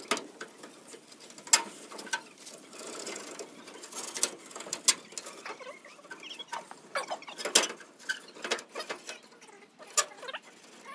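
Hand work on a cut-out truck grille: irregular sharp clicks and taps, with a short scraping stretch a few seconds in.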